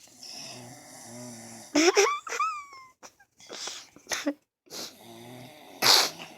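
Snoring: slow low buzzing snores on the breaths, broken about two seconds in by a loud squeaky sound that rises in pitch, with a short loud hissing burst near the end.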